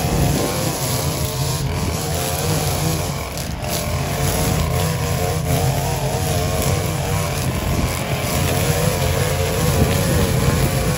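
Gas-powered string trimmer running at high throttle, its engine pitch wavering up and down as the line cuts through tall, overgrown grass and weeds.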